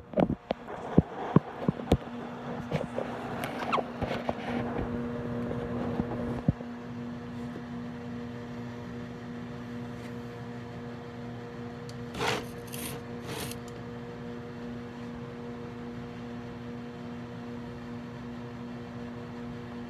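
Knocks and rustling of the phone being handled and set down for the first few seconds, then a microwave oven running with a steady low hum as it heats a butter sauce. Two short clicks about a second apart a little past the middle.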